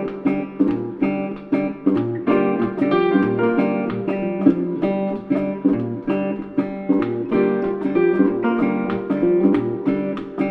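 Background music: acoustic guitar picking and strumming in a steady rhythm.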